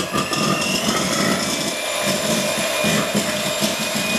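Electric hand mixer whipping cream in a stainless steel bowl, its motor and beaters running steadily at one speed.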